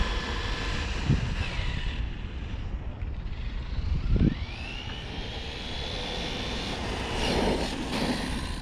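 Brushless electric motor of a Losi LMT radio-controlled monster truck whining at full trigger on its 75% throttle limit, the high whine fading near the start; about four and a half seconds in a new whine rises in pitch as the truck speeds up again. A low rumble of wind on the microphone runs underneath, with a couple of dull thumps.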